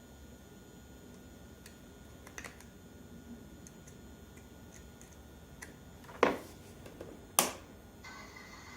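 Light ticks and clicks of small plastic parts being handled while fitting a replacement ATV foot pedal, then two sharp snaps about a second apart.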